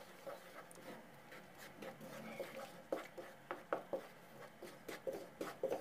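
Wooden spatula stirring milk powder into hot milk and ghee in a wok, with faint irregular clicks and taps of wood on the pan that come more often from about three seconds in.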